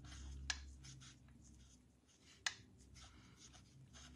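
Faint scratching of an alcohol-ink blending marker's tip stroking over cardstock as a stamped rose is colored in, with two light ticks about two seconds apart.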